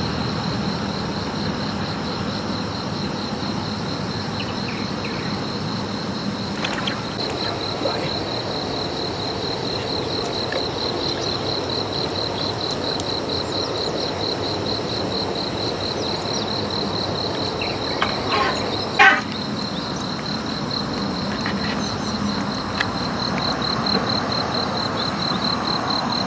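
Insects trilling steadily in a continuous high, finely pulsing buzz. A few short knocks come through it, with one brief louder sound about nineteen seconds in.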